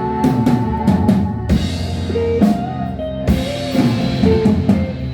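Music: a guitar playing a sustained melody with pitch bends over a drum-kit beat.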